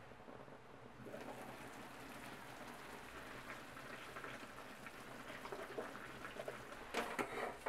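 Meat and vegetables sizzling in a stainless steel pot, louder once the glass lid comes off about a second in; near the end, chunks of raw radish drop into the pot with a few louder thuds.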